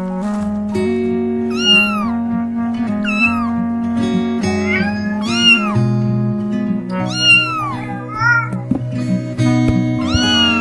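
Cartoon cat meowing six or seven times, each call rising then falling, over background music of steady held notes.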